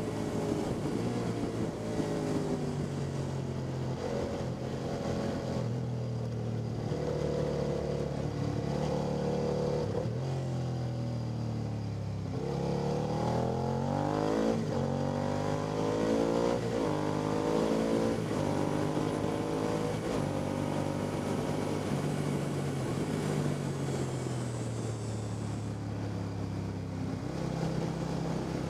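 Sport motorcycle engine heard from an onboard camera while lapping a racetrack. The revs climb and drop again and again as the bike accelerates through the gears and slows for corners, with a hard climb from low revs about twelve seconds in.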